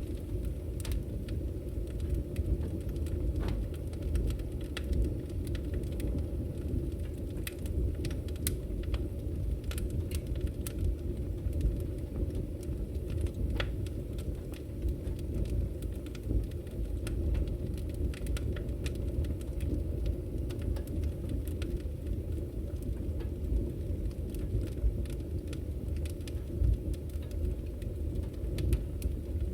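Wood fire burning in an open fireplace: a steady low rumble of flames with irregular sharp crackles and pops.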